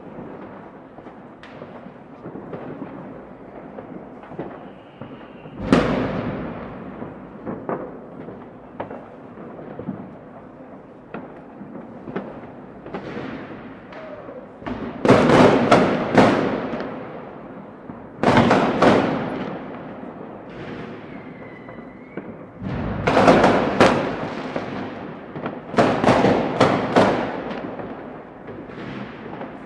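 New Year's Eve fireworks: a continuous spread of distant bangs and crackling, broken by louder clusters of sharp explosions every few seconds, with a faint falling whistle about two-thirds of the way through.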